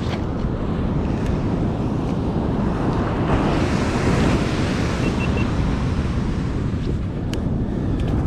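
Ocean surf breaking and washing up a sandy beach, with wind buffeting the microphone. The wash swells louder a few seconds in, then eases.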